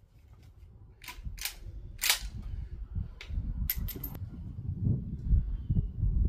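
Gunfire from an AK rifle shooting 3D-printed 7.62×39 shot cartridges at a target: several sharp cracks between about one and two seconds in, the loudest near two seconds, then a quick cluster of smaller snaps about four seconds in. Wind rumbles on the microphone throughout.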